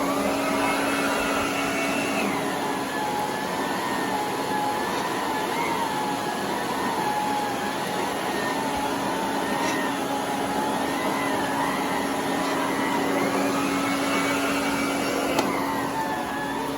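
Electrolux Model 1205 canister vacuum running with an electric hose and power nozzle on carpet: a steady hum under a motor whine that rises and falls a little in pitch every few seconds. A couple of light clicks sound, the second near the end.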